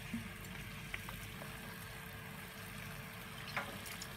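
A pan of chilli chicken stir-fry simmering with a faint, steady bubbling hiss as soy sauce is spooned in, over a steady low hum, with a few light clicks.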